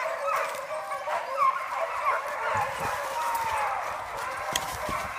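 Pack of beagles baying in cry on the trail of a wild boar: many overlapping short yelps, with a few longer falling bays.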